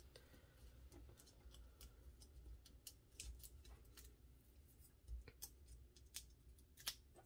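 Very faint handling sounds: scattered small clicks and ticks as foam adhesive dots are peeled off their backing sheet and pressed onto a piece of cardstock.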